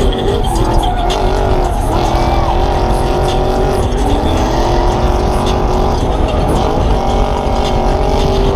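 Toyota 1UZ V8 in a Nissan S13, heard from inside the cabin, running hard at high revs, its note rising and falling.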